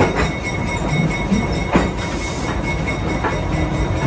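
A train rolling slowly behind a GE diesel switcher locomotive: a steady rumble of the engine and rail cars with a faint steady whine. Three sharp knocks come about a second and a half apart, typical of wheels over rail joints.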